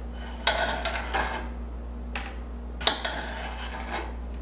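Chicago Cutlery DesignPro 8-inch chef knife slicing through a raw potato, each stroke ending with the blade striking the cutting board. There are several slices, about a second apart, and the loudest comes nearly three seconds in.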